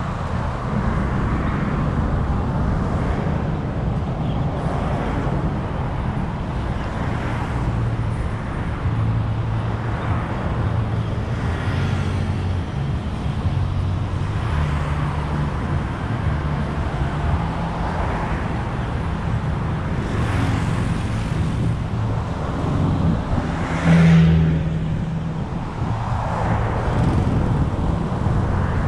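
Steady rumble of road traffic, with vehicles passing every few seconds; the loudest one passes about three-quarters of the way through.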